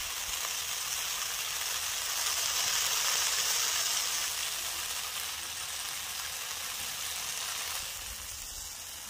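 Flat bean and tomato curry sizzling in a steel kadhai over a gas stove: a soft steady hiss that swells slightly in the middle and eases off near the end.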